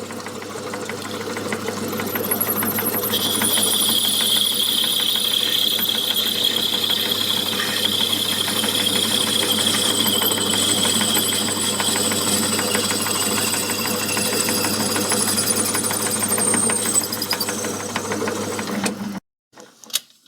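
Myford lathe running with a steady motor hum while a parting-off tool cuts into the spinning workpiece, giving a high-pitched whine from about three seconds in that fades near the end. All sound cuts off suddenly just before the end.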